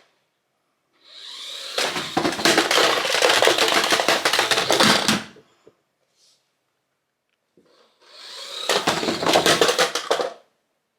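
WPL D12 remote control truck's small electric motor whining at full throttle, with gear and tyre noise, in two runs: a longer one of about four seconds, then after a pause a shorter one of about two seconds, each building up quickly as the truck speeds up.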